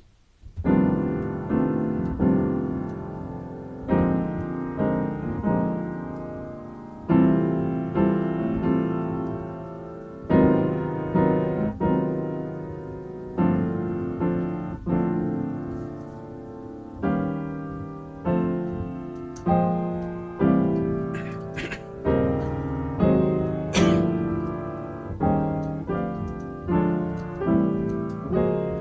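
Solo piano played as an improvisation, chords struck every one to three seconds and left to ring and die away, starting about half a second in.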